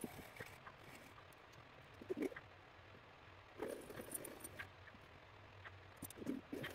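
Faint, scattered clicks and taps of small metal hand tools and a jeweler's saw frame being handled at a workbench, with a few louder knocks about two seconds in, around four seconds, and near the end.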